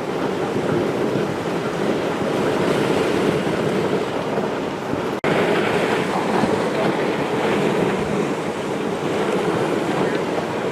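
Steady rushing noise of a moving dog sled on glacier snow: the sled's runners sliding over the snow, with wind on the microphone. It drops out for an instant about halfway.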